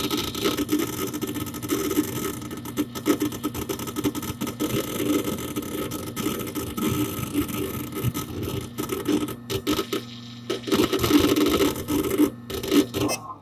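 Hard disk drive inside a Dell Dimension 4700 desktop, busy with disk activity: rapid, irregular seek clicking and chattering over the steady hum of the running computer, picked up from inside the case close to the drive. The clicking eases briefly about ten seconds in, returns in a dense flurry, and cuts off suddenly at the end.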